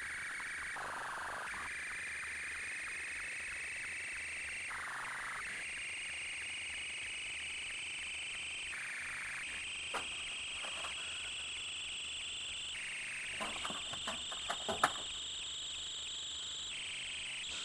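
A high, steady whine that slowly rises in pitch for about four seconds, then drops back and starts rising again, over and over. A faint click comes a little past halfway, and a cluster of clicks follows a few seconds later.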